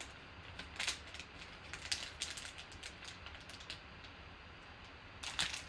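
Foil trading-card packs crinkling and rustling as they are handled, with a few irregular crackles.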